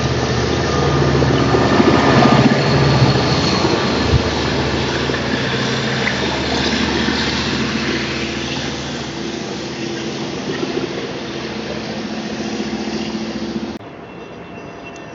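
Long Island Rail Road train running past, with a steady, even hum under the rumble, loudest a couple of seconds in and slowly fading. The sound cuts off abruptly near the end to a quieter background.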